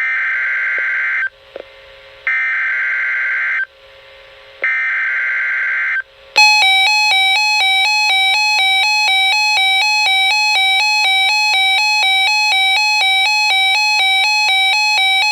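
Emergency Alert System signal: three short bursts of screeching digital SAME header data, then the harsh, buzzy EAS attention tone, which sounds steadily from about six seconds in.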